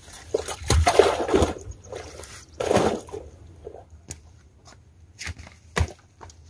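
Water sloshing and splashing as a fishing net is worked in the shallows at the water's edge, in two bursts in the first three seconds, followed by a few short, sharp knocks.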